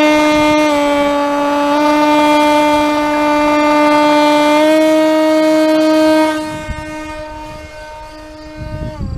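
Homemade electronic eagle-call sound effect for an RC eagle plane, sounding a loud, steady buzzy tone with small steps in pitch. About six seconds in it drops away to a fainter tone and noise, and a short falling glide comes near the end.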